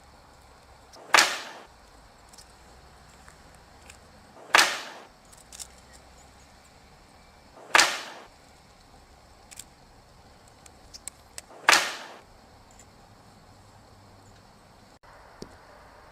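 Four sharp, loud cracks spaced three to four seconds apart, each dying away over about half a second, with a few faint ticks between them.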